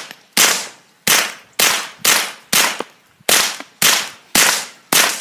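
A .22 rifle fired unsilenced in quick succession: nine sharp shots, about two a second, each with a short echoing tail.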